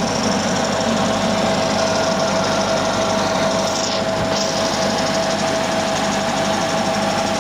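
Refrigerator compressor running with a loud, steady mechanical rattle over a constant hum.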